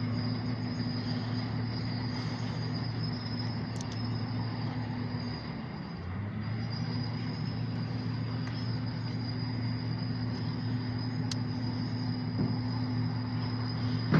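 A steady low mechanical hum with a faint high whine above it; the hum drops out briefly about six seconds in and then resumes.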